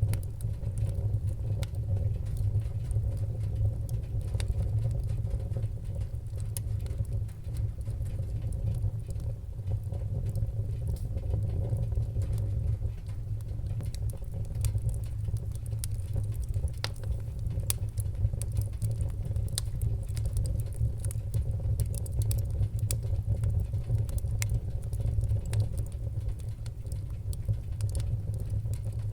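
Wood fire burning, with frequent small crackles and sharp pops scattered over a steady low rumble of the flames.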